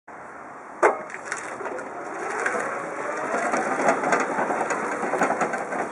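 Jungheinrich EFG 320 electric forklift driving off over paving stones: tyres crackling and crunching on grit, with a faint whine from the electric drive that rises in pitch as it speeds up. A sharp click about a second in.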